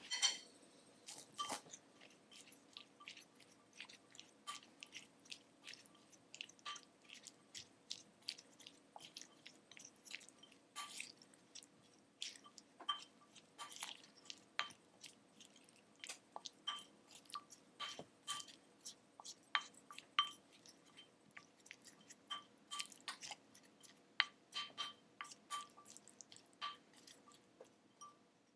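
Irregular light clicks and clinks of a utensil against a ceramic dish, many ringing briefly, several each second.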